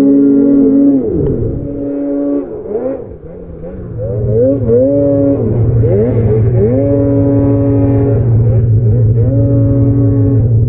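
Snowmobile engines. One holds steady high revs, then backs off about a second in. From about four seconds, sleds rev in repeated bursts, the pitch rising and falling over a steady low rumble, as they push through deep powder.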